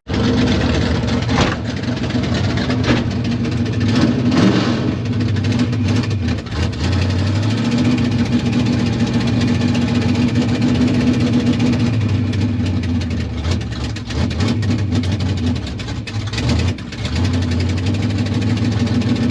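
A mud truck's engine running steadily close by, near idle, with its pitch dipping briefly a couple of times.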